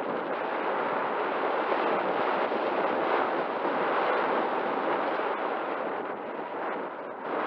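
Airflow rushing over the microphone of a camera riding on an RC glider in flight, motor off with the propeller folded. The rush grows louder toward the middle and eases off near the end.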